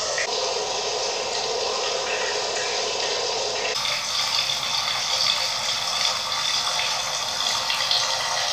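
Steady rushing, hiss-like noise with no clear source. About four seconds in it changes abruptly, losing its lower part and turning thinner and higher.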